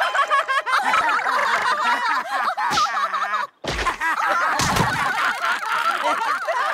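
Cartoon falls: a sudden hush about three and a half seconds in, then two heavy thuds as characters hit the ground. Before and after, a crowd of voices chatters and snickers.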